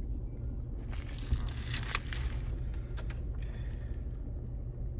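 Packaging being handled and crumpled, with a crinkling, tearing stretch in the first half and a few small clicks after it, over a steady low rumble.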